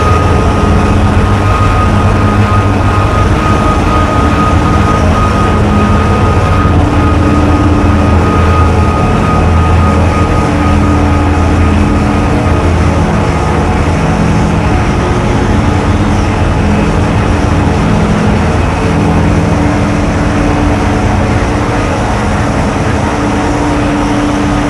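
Amplified harsh noise from contact microphones on an angle grinder cutting through a car tire and on a calculator rubbed against sandpaper. It is a loud, continuous wall of grinding noise with a deep hum underneath, and a steady high tone that fades out about halfway through.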